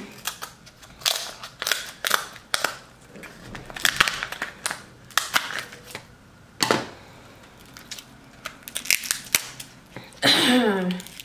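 Shellfish shells being cracked and snapped apart by hand while eating a seafood boil: a run of sharp, irregular cracks and crunches, some a second or more apart and some in quick clusters.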